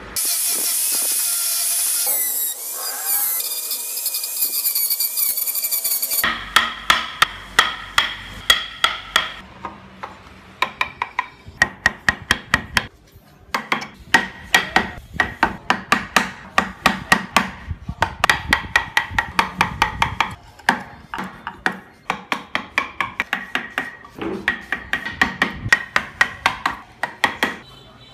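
Mallet striking a carving chisel into hardwood in quick, even strikes, about three a second, in runs broken by short pauses. Before the strikes begin, about six seconds of steady high-pitched noise.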